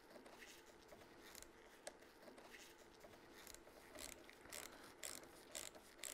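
Faint clicking of a ratchet wrench tightening a brake-line banjo bolt into a radial master cylinder. The clicks are sparse and uneven at first, then louder and steadier at about two a second from about halfway through.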